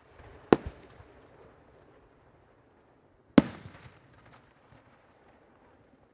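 Two aerial firework shells bursting about three seconds apart, each a sharp bang followed by a fading echo and a few smaller pops.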